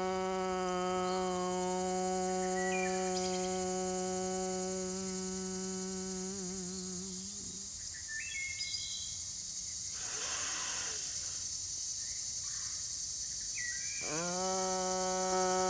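A single voice chanting a long, steady 'ah–oh' tone, held for about seven seconds with a waver before it stops, then an audible in-breath and a second chanted tone starting near the end. A steady high insect hiss runs underneath.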